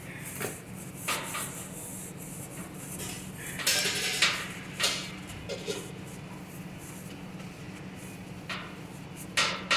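Irregular clatters and knocks of metal kitchenware being handled, with a longer scraping clatter about four seconds in and two sharp knocks near the end, over a steady low hum.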